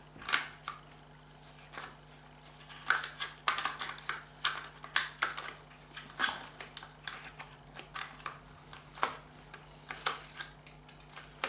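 Irregular small clicks, taps and scrapes of a car's reverse light switch being worked apart by hand, its small latch pieces knocking against the housing and the work surface.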